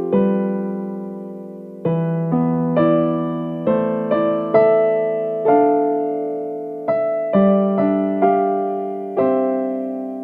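Slow piano music: single notes and chords struck about once a second, each left to ring out and fade.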